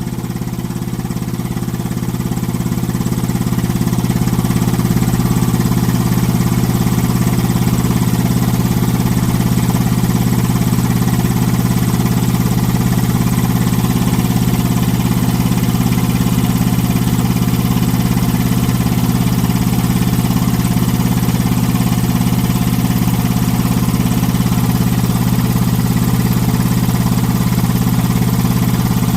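Quincy Model 5120 25 HP piston air compressor running steadily under load, pumping up tank pressure toward its pressure-switch cut-out near 150 psi. It is a constant low machine hum that grows a little louder over the first few seconds, then holds even.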